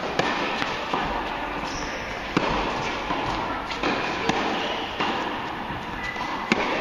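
Tennis rally: sharp pocks of a tennis ball struck by rackets and bouncing on the court, about one every second or so, echoing in an indoor tennis hall.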